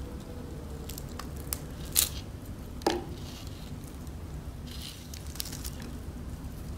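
Crispy breading on KFC fried chicken crackling as the piece is torn apart by hand: scattered crunchy crackles, with two sharp, louder cracks about two and three seconds in.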